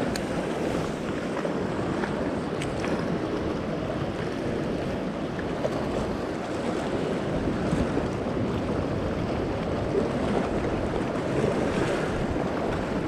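Sea surf washing steadily against the shore, with wind buffeting the microphone.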